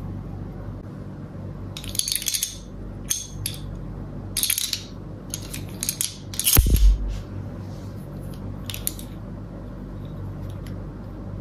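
Aluminium gravity fidget knife and its plastic case being handled: a series of short metallic clicks and rattles in separate clusters, the loudest a sharper knock with a low thump about six and a half seconds in.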